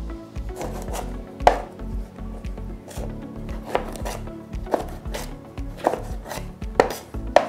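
Kitchen knife chopping bell pepper into cubes on a cutting board: irregular sharp knife strikes against the board, about one a second.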